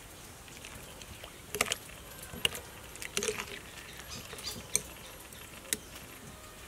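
Metal spoon stirring a liquid sauce in a ceramic bowl, with several light clinks at irregular intervals as it knocks against the bowl.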